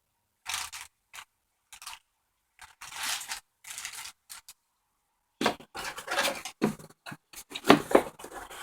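Packaging in a laptop box being handled: short bursts of rustling and scraping with gaps between them. The bursts come closer together and louder in the last three seconds, with one sharp knock near the end.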